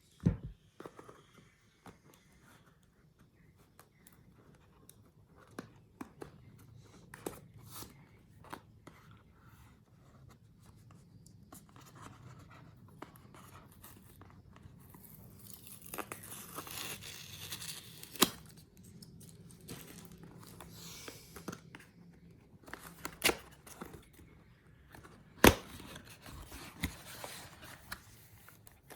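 Packaging being handled and opened: tearing and crinkling of wrapping, with scattered clicks and knocks as parts are lifted and set down. The rustling is thickest for a few seconds past the middle, and a few sharper knocks stand out near the end.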